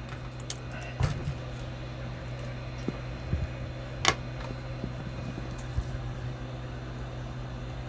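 Steady fan hum from microsoldering bench equipment, with a few light clicks and taps, the sharpest about four seconds in.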